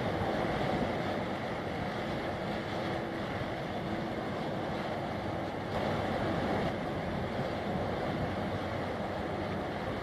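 Strong wind buffeting the microphone over choppy, wind-driven harbour water: a steady rushing noise, swelling briefly in a gust about six seconds in.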